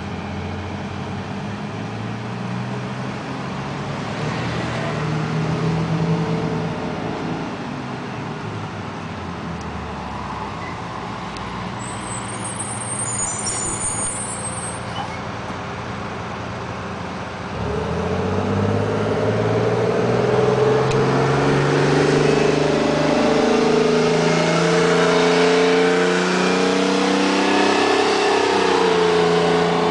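Diesel engine of a New Flyer articulated transit bus running at low speed as it approaches and passes, with a brief high squeal near the middle. About two-thirds of the way in it pulls away under power, getting louder, its pitch rising and dropping back several times as the automatic transmission shifts up.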